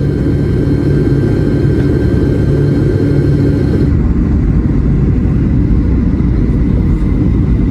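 Steady low rumble of a Boeing 757-200 airliner in flight, heard inside the passenger cabin. About four seconds in the sound changes abruptly, losing its upper hiss.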